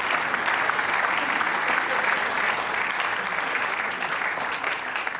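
Live audience applauding, a dense patter of many hands clapping that eases off at the end.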